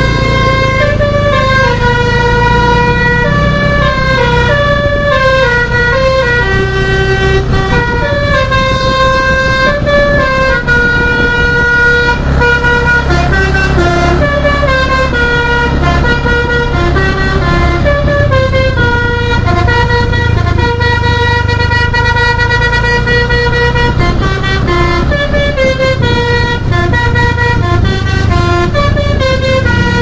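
A bus's telolet basuri musical horn playing a long melody of held notes stepping up and down in pitch, over the low running of the bus engine.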